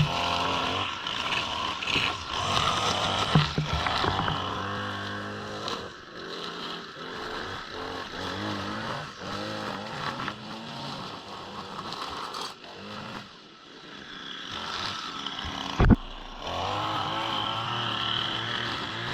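Small gas engine of yard-cleanup equipment running, its pitch rising and falling as the load and revs change. There is one sharp knock about sixteen seconds in.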